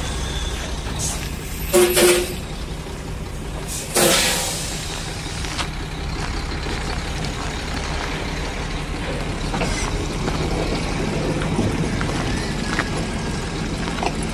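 Heavy Howo A7 tractor truck's diesel engine running steadily. About two seconds in there are two short loud blasts, and about four seconds in a sudden hiss of air brakes releasing that dies away within a second.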